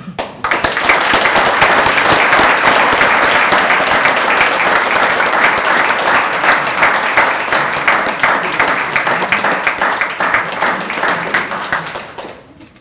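Audience applauding. The applause starts about half a second in and dies away near the end.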